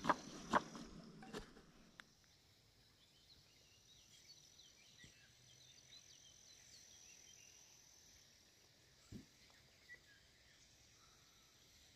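Faint outdoor ambience: a steady high insect trill and scattered faint bird chirps. A few sharp knocks come in the first second and a half, and two soft thumps near the end.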